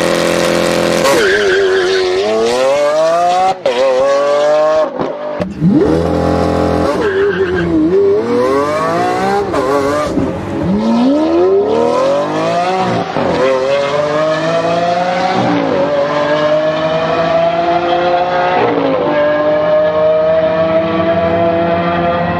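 Lamborghini Aventador's 6.5-litre V12 revving and accelerating hard through the gears. The engine note climbs steeply, drops at each upshift and climbs again, with a long steady climb in the second half.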